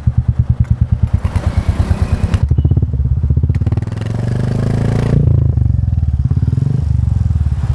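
Royal Enfield Classic 350's single-cylinder engine running through a Globe Exploder aftermarket exhaust. It idles with an even, rapid thump, is revved up about two and a half seconds in and held higher for a few seconds, then drops back to idle near the end.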